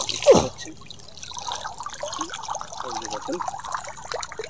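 Water trickling and dripping back into the river from a mesh landing net lifted out with a caught catla inside, with one short loud splash right at the start.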